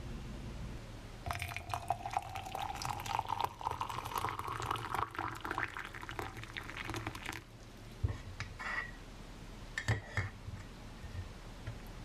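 Hot water poured from a kettle into a ceramic mug for about six seconds, the pitch of the filling rising steadily as the mug fills. Then a few sharp clinks of a metal spoon against the mug.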